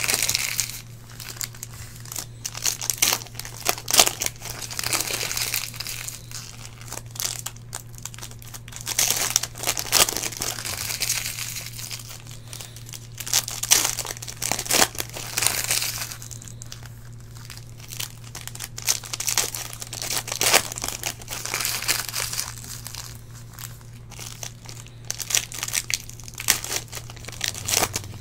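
Foil trading-card packs (2016-17 Panini Select basketball) being torn open and their wrappers crinkled and crumpled by hand, in irregular crackling bursts every few seconds, over a steady low hum.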